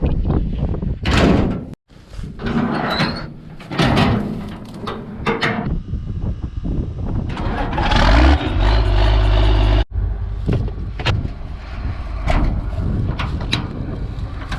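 Combine harvester machinery running, with repeated knocks and clatter over a low engine rumble, heard in several short cut-together shots; the rumble is strongest and steadiest just past the middle.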